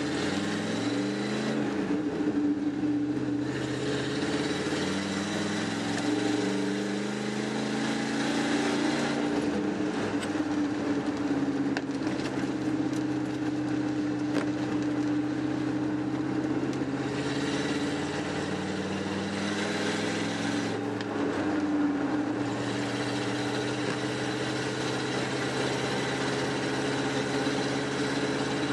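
The 1994 Ford F-150's 5.0-litre V8 is heard from inside the cab as the truck pulls away through the gears. Its pitch climbs and drops a few times in the first ten seconds, holds steady at cruise, then climbs again a little after twenty seconds, over a steady hiss of tyres on the wet road.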